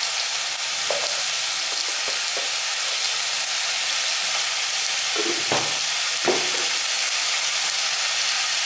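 Chopped vegetables and chicken pieces sizzling steadily in a little oil in a pot, being lightly fried as the base of a lentil soup, with a few brief stirring noises.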